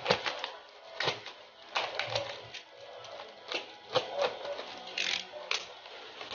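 Plastic courier pouch being handled and opened by hand: irregular crinkles and clicks, with a short louder rustle about five seconds in.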